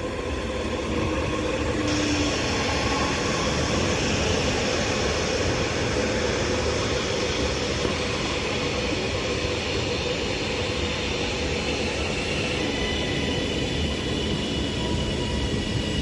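Northern Class 331 electric multiple unit arriving into the platform: a steady rumble of wheels and running gear with a few steady whining tones over it. Higher steady tones join about three-quarters of the way through.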